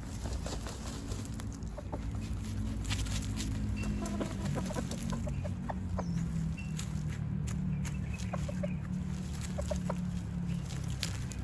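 Chickens clucking softly while dust-bathing, with short scratchy rustles of dirt, over a low steady hum.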